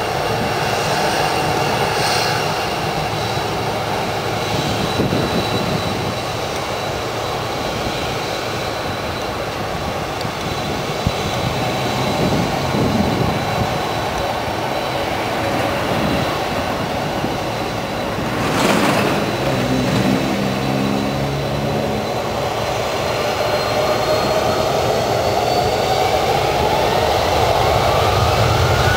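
Boeing 747-400F freighter's four turbofan engines running with a steady jet rumble and whine. The whine rises in pitch over the last few seconds as the engines spool up.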